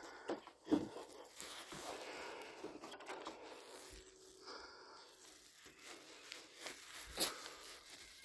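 Irregular rustling and crunching of leaves and brush being handled or trodden, with a sharp snap about a second in and another near the end.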